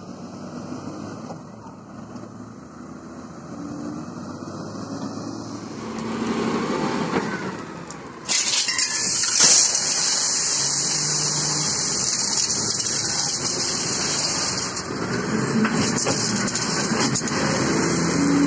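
Diesel engine of an SDLG wheel loader running while it loads material, with a loud steady hiss that starts suddenly about eight seconds in.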